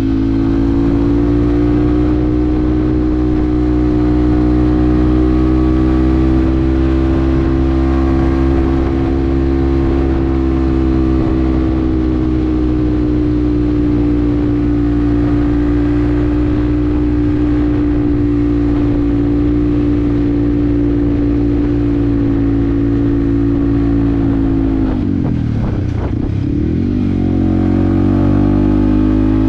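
Yamaha WR155R's single-cylinder four-stroke engine running at steady revs under way. About 25 seconds in, the revs drop sharply and then pick up again.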